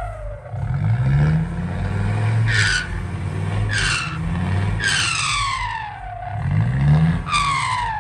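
Dump truck's diesel engine revving hard in repeated bursts under load, its wheels stuck on a slippery patch of sand and mud and puffing black smoke. A high whistle slides down in pitch after several of the revs, the longest ones about five seconds in and near the end.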